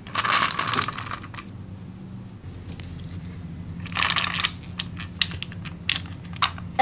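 Plastic toy car pushed by hand over rough concrete, its wheels grinding and rattling in two spells: about the first second and a half, and again briefly around four seconds in, with a few clicks near the end.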